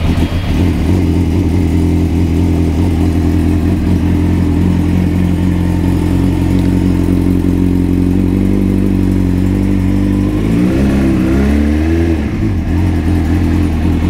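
1996 Suzuki GSX-R750 SRAD's carburetted inline-four running at a steady fast idle on choke, just after a cold start following a jet kit and carb work. It is blipped up in a couple of short revs at around ten to twelve seconds in, then settles back, sounding much better.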